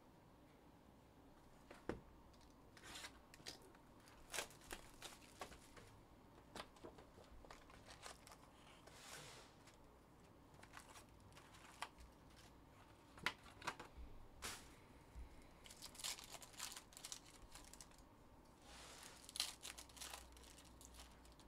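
Faint tearing and crinkling of trading-card pack wrappers being opened, with scattered light clicks and taps as the cards are handled.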